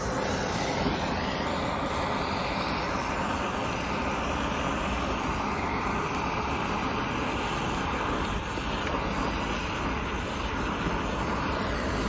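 Steady rushing hiss of a gas torch flame, heating a circulating pump's worn shaft sleeve to loosen it for removal.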